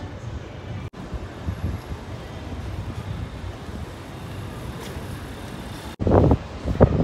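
Steady low vehicle rumble with wind noise on the microphone, changing abruptly about a second in and again near the end, where louder, uneven bursts of sound begin.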